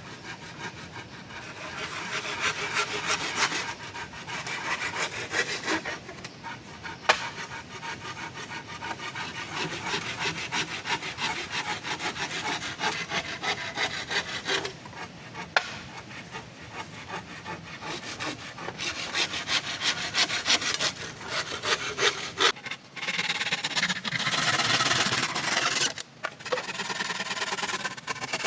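Hand saw cutting through wood in steady back-and-forth strokes, with a few short pauses.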